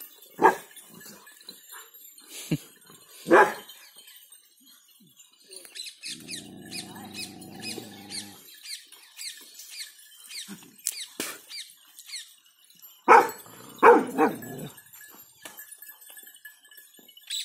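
A Rottweiler barking: two single barks in the first few seconds, then two more in quick succession near the end. A long, low, drawn-out animal call comes in between.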